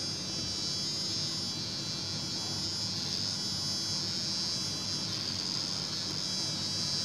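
A steady high-pitched buzz with a low hum beneath it, unbroken throughout.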